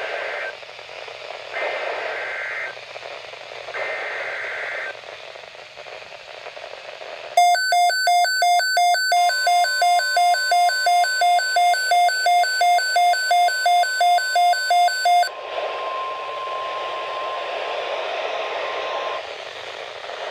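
Emergency Alert System broadcast received through heavy radio static: three short bursts of the digital alert header sound through the hiss, then a loud electronic alert beep pulsing about two to three times a second for about eight seconds. Under the beeping, the steady 1050 Hz NOAA Weather Radio warning tone starts and holds for about ten seconds before giving way to static.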